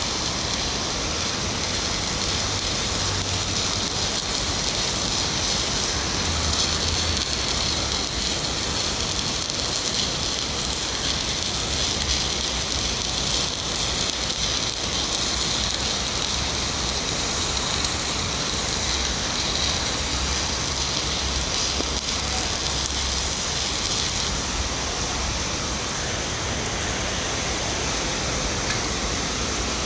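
Shielded metal arc (stick) welding on carbon steel pipe: the electrode arc crackles and sizzles steadily as the bead is laid. The arc stops a few seconds before the end, leaving a steady hiss.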